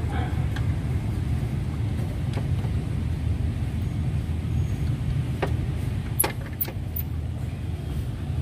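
Toyota Fortuner engine idling steadily, with a few light clicks.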